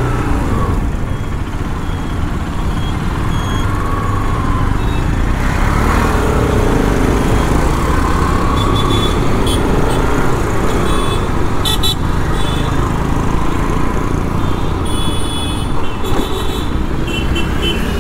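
Motorcycle riding slowly through city traffic: the Bajaj Pulsar RS 200's single-cylinder engine running under a steady rumble of traffic, with other vehicles' horns honking several times in the second half.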